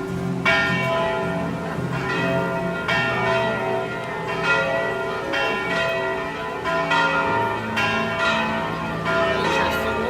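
Bells ringing: a series of struck bell tones about every second or so, each ringing on and overlapping the next.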